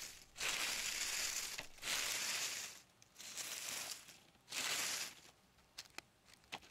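Dry dead leaves crunching and rustling in four crackly swishes about a second apart, followed by a few small ticks near the end.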